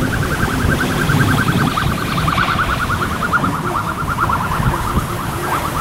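A siren with a rapid fluttering pulse, its pitch sinking slowly and then rising again near the end, over low wind rumble on the microphone.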